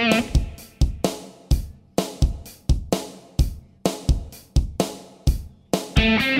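Background music: a steady drum-kit beat, with a held chord coming in near the end.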